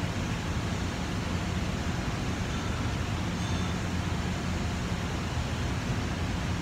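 Laboratory ventilation running: a steady rushing noise of moving air with a low hum underneath.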